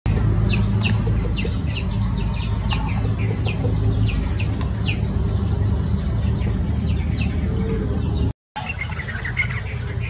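Small songbird giving a quick series of short, high chirps, each sliding downward, about two a second, with a few more near the end, over a steady low hum.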